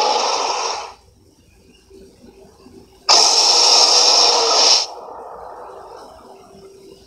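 Giant ape roar sound effect, harsh and noisy. One roar cuts off about a second in. A second loud roar starts suddenly about three seconds in, lasts under two seconds, and dies away in a fading tail.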